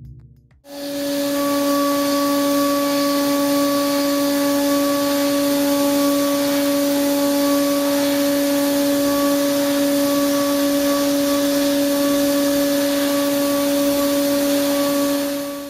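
CNC milling spindle at 17,000 rpm driving an ISCAR Chatter Free D4 end mill through C45 steel at 9.8 mm depth of cut: a steady whine over a hiss of cutting. It starts about half a second in and fades out near the end.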